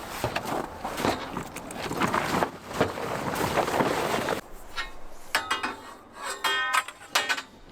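Camping gear and metal scaffolding being handled and packed up: steady rustling and clattering full of sharp clinks. After about four seconds it turns quieter, with scattered clinks and a few brief ringing tones.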